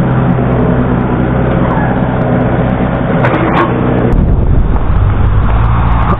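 Yanmar mini excavator's diesel engine running under load as the arm digs into the dirt pile, with a short rising whine a little past three seconds. About four seconds in the sound changes to a deeper, steadier engine note.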